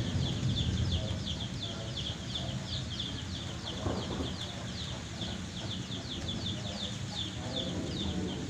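Thunder rumble dying away in the first moment, leaving a steady faint low rumble. Over it runs a rapid high-pitched chirping that repeats about four times a second, with a few faint low calls.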